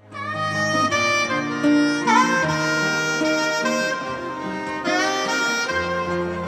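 Live band playing a song's instrumental intro: a held lead melody with a pitch bend about two seconds in, over a steady bass line and acoustic guitars.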